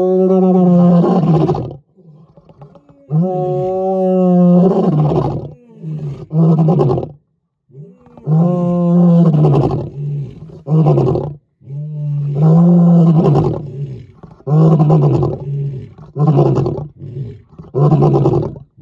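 Lion roaring: a roaring bout of two long, drawn-out roars followed by a long run of shorter roars spaced about a second apart.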